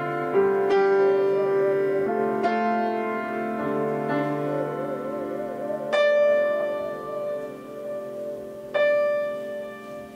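Live duet of upright piano and bowed string instrument. The piano strikes slow notes and chords about four times while the bowed instrument holds long notes with a wide vibrato.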